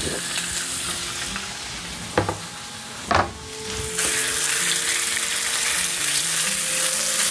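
Strips of spruce grouse breast sizzling in oil on a hot electric griddle, with two short knocks of the spatula against the griddle in the middle. About four seconds in, the sizzle gets suddenly louder as the meat is spread across the hot surface.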